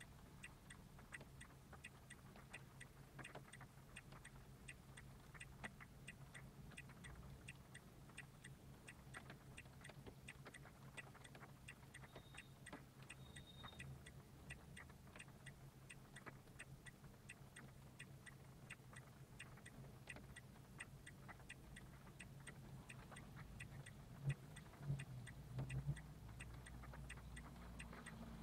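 Faint, steady, even ticking, a few ticks a second, over a low steady hum, with a few soft low thumps near the end.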